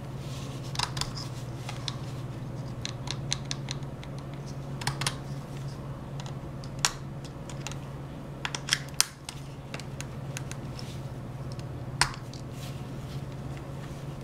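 Irregular plastic clicks and taps from a rubberized snap-on phone case and its swivel belt clip being handled and taken apart, with a few louder snaps, the sharpest about twelve seconds in, over a steady low hum.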